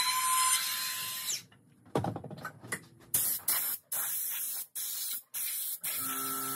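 A cordless power tool running with a hissy sound, chopped into short stretches by several abrupt breaks.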